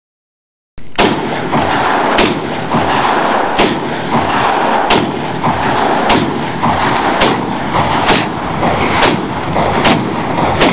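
A rifle fired shot after shot at a steady pace, starting about a second in: more than a dozen sharp cracks, roughly one every half second to a second.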